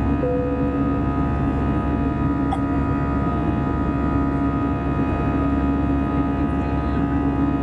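Airbus A320-214 cabin noise: the CFM56-5B engines and airflow making a steady drone, a dense set of fixed tones over an even low rumble.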